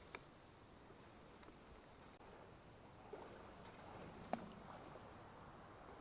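Faint steady high-pitched trill of insects, such as crickets. There is a sharp click just after the start and a louder one about four and a half seconds in.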